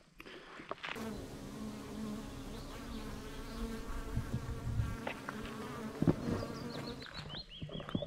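A steady, slightly wavering buzzing hum that starts suddenly about a second in and fades just before the end. A bird sings a short phrase of high notes stepping downward near the end.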